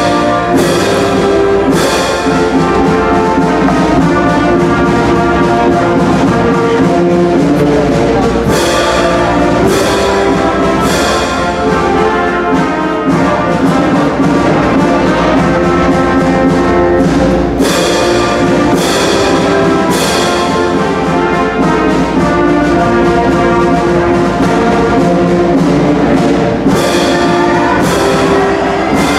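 Orchestral music led by brass, trumpets and trombones holding full sustained chords, with sharp accents recurring every few seconds.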